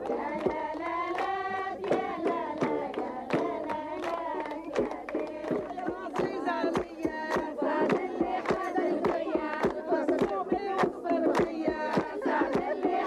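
A group of women singing a traditional wedding song together, with steady rhythmic hand clapping at about two claps a second.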